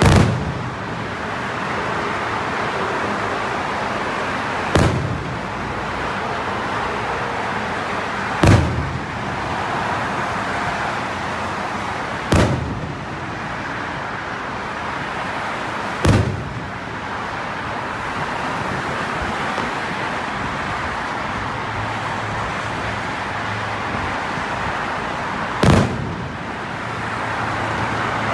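Aerial firework shells bursting overhead: about seven sharp booms spaced a few seconds apart, with a longer gap before the last two, over a steady background rush.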